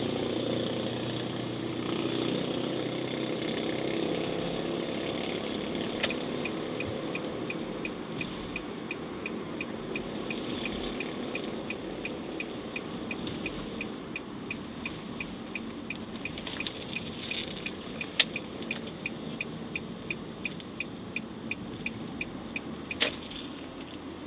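Car cabin road and engine hum, with the turn-signal indicator ticking steadily at about three ticks a second from about six seconds in until near the end. A few louder single clicks stand out along the way.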